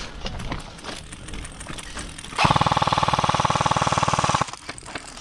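S&T M249 airsoft electric gun firing one long full-auto burst of about two seconds: a rapid, even rattle that starts about halfway through and stops abruptly. Faint clicks and rustle come before it.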